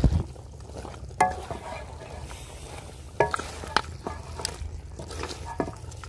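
A spoon stirring beef karahi in a large aluminium pot, scraping through the meat with several sharp knocks against the pot that ring briefly. A steady low rumble runs underneath.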